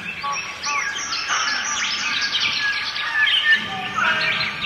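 A chorus of birds chirping and calling, with many short calls overlapping at once.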